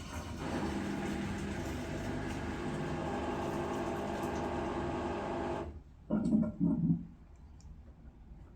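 LG front-load washing machine draining before its spin, the pump running with a steady watery hum that cuts off suddenly. Two short, loud bursts from the machine follow about a second later.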